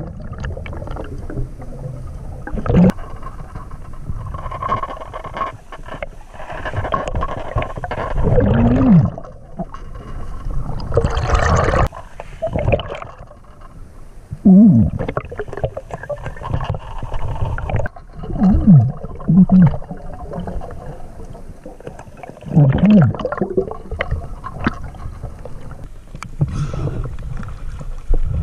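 Underwater, a diver breathing: long rushes of breath and bubbles every few seconds. Between them come short low tones that rise and fall, several times.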